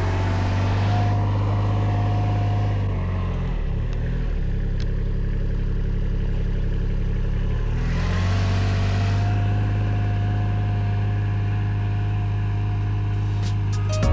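Kubota RTV-X side-by-side utility vehicle driving, its diesel engine running steadily with a whine above it. The engine note dips and shifts about four seconds in and settles back near eight seconds.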